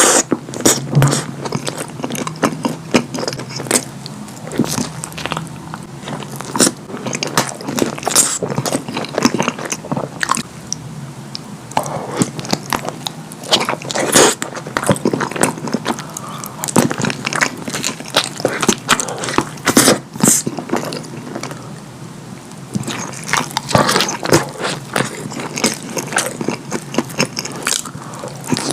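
A person chewing and biting chilli cheese dogs close to the microphone, with a dense, irregular run of mouth clicks and smacks.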